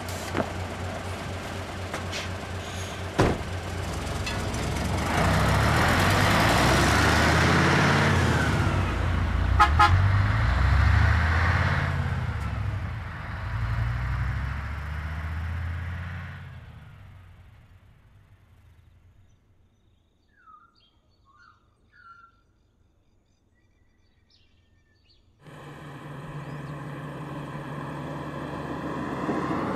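A heavy truck drives past, its engine and tyres swelling loud and then fading away over several seconds. Then comes near quiet with a few faint chirps, until a vehicle engine cuts in suddenly, running steadily and growing louder near the end.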